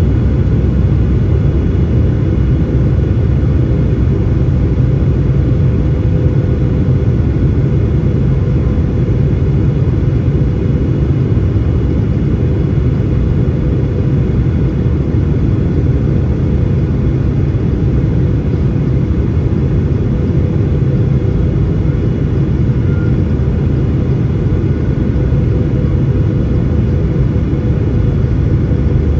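Cabin noise inside a Boeing 737-800 on approach: its CFM56-7B engines and the airflow past the fuselage make a steady, deep rumble, with a faint constant hum above it.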